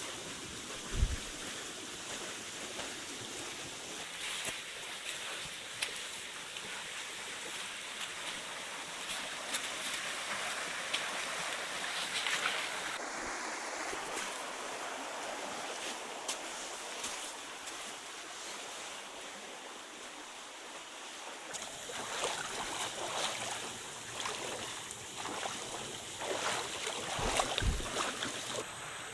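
Steady rush of a shallow jungle stream, with boots splashing and stepping through the water and many short knocks. A single loud thump comes about a second in, and the sound changes abruptly about halfway through and again about two-thirds through.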